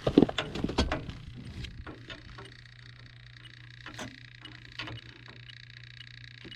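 Knocks and rustling of someone moving and handling things in a tight crawl space, over a steady electrical hum. Faint, evenly spaced high ticks run through it, typical of an electronic refrigerant leak detector searching at its idle rate.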